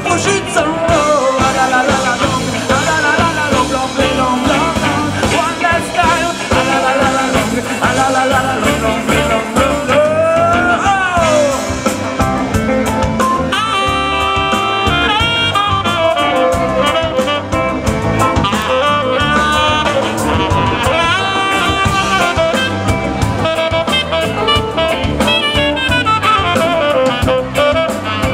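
Live band music with a steady drum-kit beat, keyboard and a horn section playing held and sliding melodic lines.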